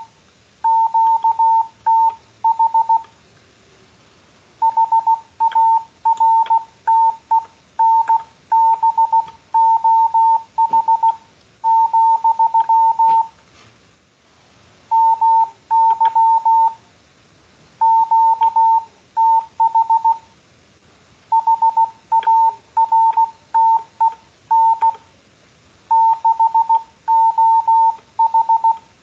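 Hand-sent Morse code (CW): a single steady beep tone keyed on and off in dots and dashes, grouped into words with longer pauses between them. The sender is a beginner spelling out a "my QTH is" message that gives his location.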